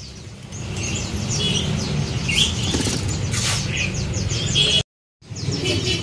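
Many caged small songbirds chirping, with short repeated high chirps and calls over a low steady rumble. The sound drops out completely for a moment about five seconds in.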